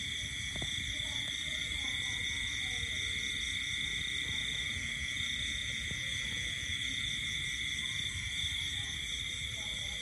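Steady night-time animal chorus: a continuous shrill high trilling drone at two pitches, with a low rumbling hiss underneath.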